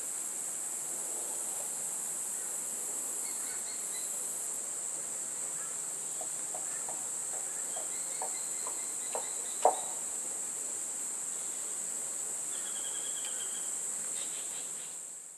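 Steady high-pitched chorus of insects with no break, with a few faint bird chirps. A run of soft clicks comes in the middle, and a single sharp click about ten seconds in.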